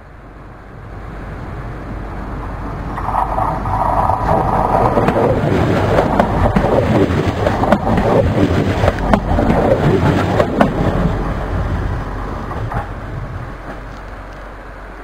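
Diesel railcar (autorail) approaching, passing close by and fading away: the engine and running noise build to a peak as it goes by, with sharp clicks from the wheels on the rails, then die down.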